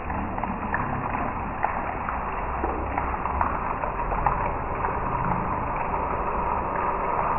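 Heavy rain falling onto a flooded road and puddles: a steady hiss of drops with many small splashes and ticks standing out, over a low rumble.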